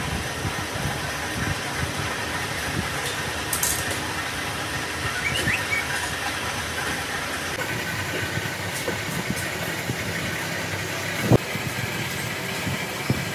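Steady machine-like workshop hum, with small metal clicks and taps as a brake wheel cylinder is assembled by hand, and one sharp knock about eleven seconds in.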